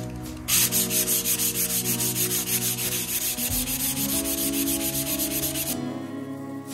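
Hand sanding of dried putty on a plasterboard wall with a block and 240-grit sandpaper: a quick run of rasping back-and-forth strokes that stops about a second before the end. The putty is being sanded until no step remains at the patches and seams.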